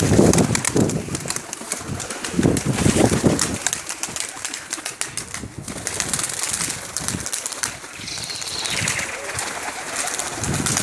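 Domestic tumbler pigeons cooing in low, rough bursts near the start and again a couple of seconds later, with wings flapping and clapping as a pigeon takes off from the flock.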